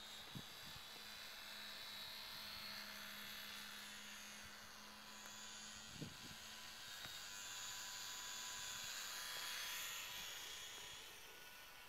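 Faint, distant buzzing whine of a HobbyZone Champ micro RC plane's small electric motor and propeller in flight, its pitch drifting up and down. There are a couple of soft low thumps, one about half a second in and one about six seconds in.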